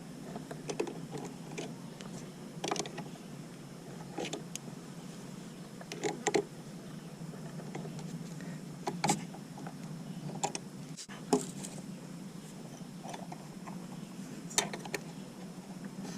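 Irregular clicks and metallic clinks of hand tools working on a riding mower's carburetor, over a steady low hum.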